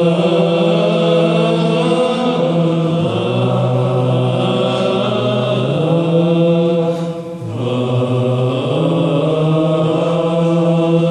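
Orthodox Byzantine chant sung by male voices over a loud held drone, the ison, heard close to the drone singers. The drone steps down to a lower note about three seconds in, comes back up about halfway through, and breaks off briefly for a breath soon after before resuming.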